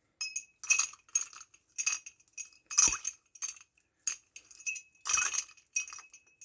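Chainsaw saw chain clinking and jangling as it is handled: a dozen or so sharp, irregular metallic clinks, each with a short ring.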